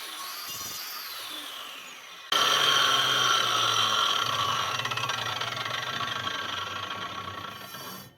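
Angle grinder whining as it spins down, its pitch falling. About two seconds in it cuts abruptly to a louder spin-down that falls slowly and fades away near the end.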